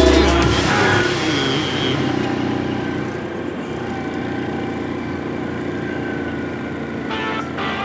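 ATV engine running at a steady trail pace, louder with a low rumble for the first second or so, then a steady drone.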